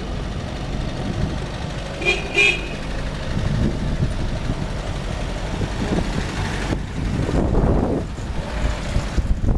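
Vehicle engines and road noise running steadily, with a car horn giving a short double toot about two seconds in.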